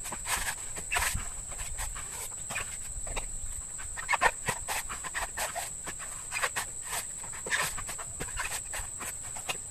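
A bolo knife chopping whole mature coconuts open: a string of irregular sharp knocks and cracks, about one or two a second.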